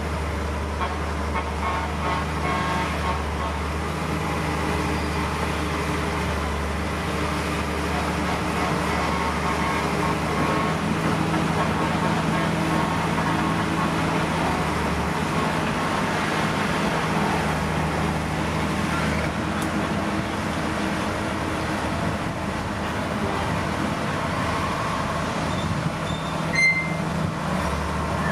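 Diesel engines of heavy earthmoving machinery, bulldozers and dump trucks, running steadily under load. A short high beep sounds near the end.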